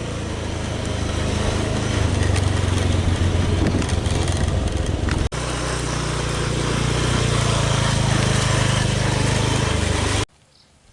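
Loud, steady engine noise, heard as two stretches with a sudden break about five seconds in; it cuts off abruptly near the end.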